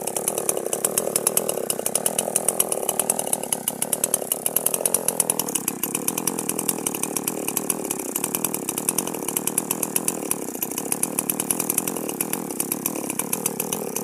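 Chainsaw running steadily, its engine and chain making a fast, even rattle throughout.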